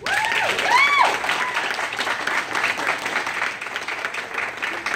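A small group of onlookers clapping steadily, with two short rising-and-falling cheers in the first second.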